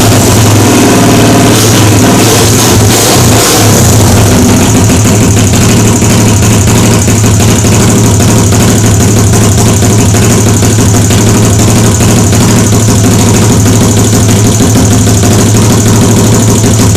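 Small motorcycle engine on a custom mini chopper, fitted with an FCR carburettor, blipped a few times in the first few seconds and then idling steadily.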